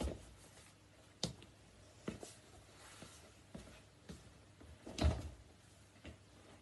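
Sneakers stepping and stamping on a hard floor: a string of irregular thuds and scuffs, the heaviest about five seconds in.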